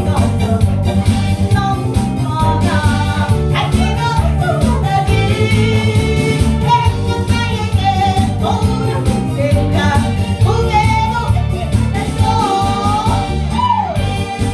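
A woman singing a Korean trot song into a microphone, her voice sliding and wavering on held notes, over loud amplified trot accompaniment with a steady beat.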